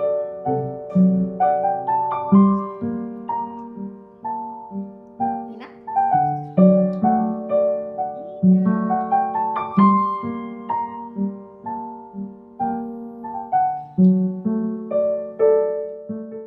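Background music: a gentle piano melody of struck notes that each ring and fade, a few notes a second.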